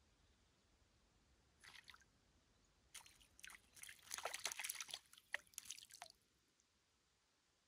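A hooked small fish splashing at the water surface as it is drawn in on a float rod: a few splashes about a second and a half in, then a flurry of splashes and drips from about three to six seconds in.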